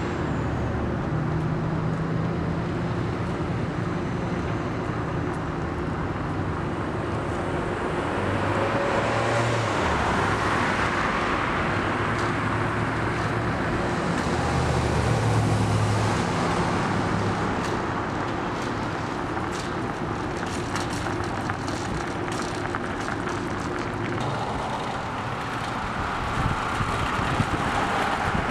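Street traffic ambience: cars and other vehicles passing, their engine hum and tyre noise swelling and fading, with a run of light clicks and rattles in the second half.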